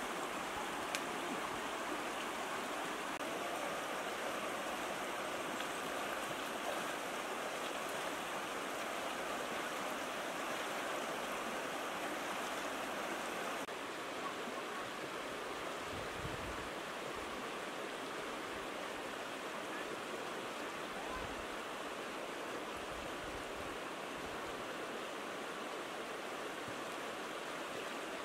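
Fast-flowing stream rushing steadily, with a few dull low thumps in the second half.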